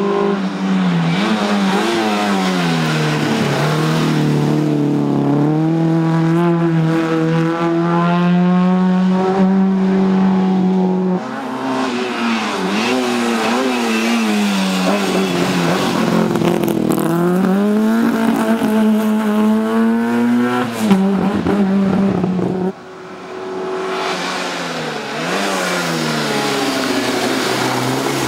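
Autobianchi A112 rally cars, small four-cylinder engines revved hard, passing one after another on a hill stage. The engine note rises and falls with each gear change, with brief high held revs, and the sound switches abruptly twice from one car to the next.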